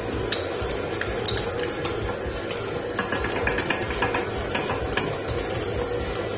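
KitchenAid Artisan stand mixer running steadily with its dough hook, kneading bread dough. A spoon clinks several times against a small ceramic bowl around the middle.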